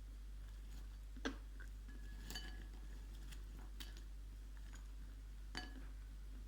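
Dry Ural clay being bitten and crunched close to the mic: a few separate sharp crunches and clicks, the loudest about a second in, over a steady low electrical hum.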